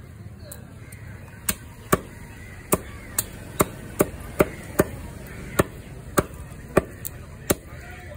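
Heavy cleaver chopping through chicken pieces onto a wooden log chopping block: a quick, uneven run of sharp chops, about two a second.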